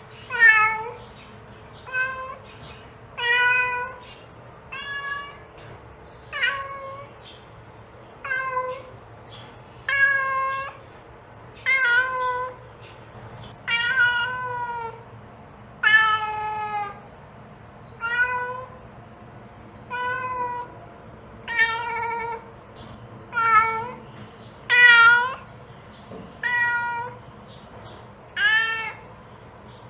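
Mother cat meowing over and over, calling her kittens: short rising-and-falling meows, about one every one and a half to two seconds.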